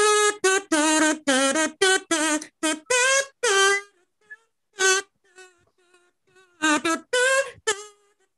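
Kazoo played as a run of short buzzy notes picking out a pop song's melody. The notes break off about four seconds in, go on faintly for a couple of seconds, then come back loud near the end.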